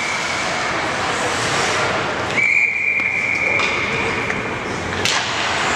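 Referee's whistle in an ice rink: one blast trailing off about a second in, then a second, louder blast of about two seconds, each a single steady shrill note, over the rink's crowd and skating noise. A sharp knock near the end.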